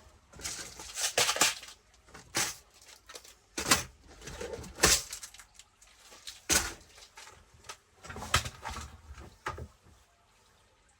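Small screws and parts being rummaged through and handled on a workbench: irregular clicks and light rattles of metal and plastic, dying away near the end.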